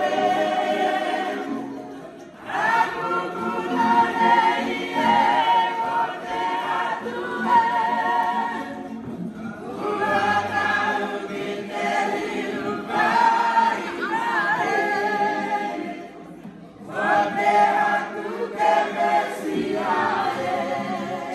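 A group of voices singing a song together in harmony, accompanied by strummed ukuleles and acoustic guitars. The voices carry the sound in long phrases, with short pauses about every seven seconds.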